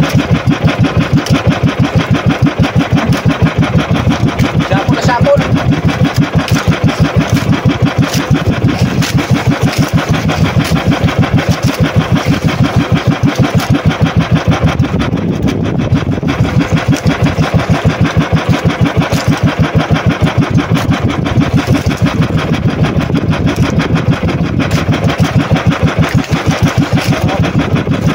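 Engine of a motorized outrigger fishing boat (bangka) running at a steady speed, a loud, fast, even chugging beat.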